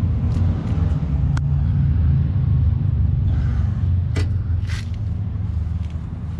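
A vehicle's steady low rumble, with a sharp click about a second and a half in and two short hissing sounds a little after four seconds.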